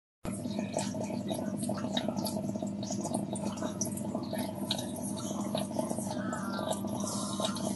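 Aquarium water bubbling and dripping with many small irregular clicks over a steady low electric hum, typical of a running air pump or filter. It starts abruptly just after the start.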